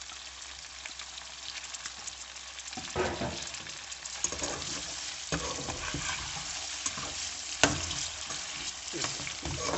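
Mutton rib chops sizzling in hot oil and masala in a metal pan. From about three seconds in, a spatula scrapes and knocks against the pan as the chops are stirred, with one sharp knock about three-quarters of the way through.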